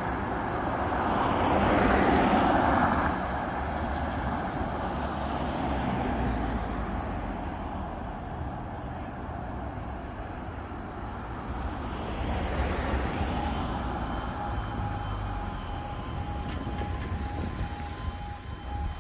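Road traffic passing over a level crossing, loudest about two seconds in. About fourteen seconds in, the crossing's audible warning alarm starts, a pulsing electronic tone, warning that the barriers are about to lower for an approaching train.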